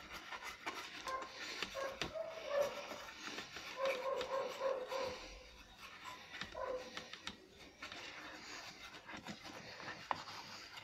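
Bristle brush scrubbing a solvent-wet printed circuit board, a faint, irregular scratchy rubbing as the dirt is washed off.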